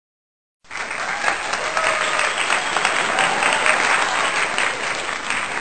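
Crowd applause, many hands clapping densely, starting suddenly a little over half a second in after dead silence.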